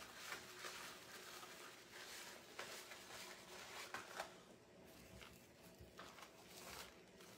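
Faint, scattered rustles and light taps of ribbon being handled and worked into a bow.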